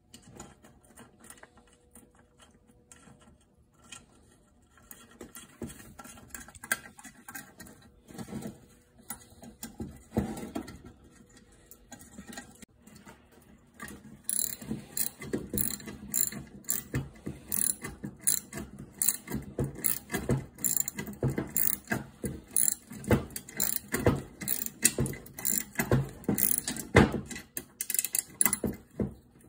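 Hand ratchet wrench clicking as bolts are run in and tightened: scattered clicks at first, then from about halfway a steady run of rapid ratcheting strokes.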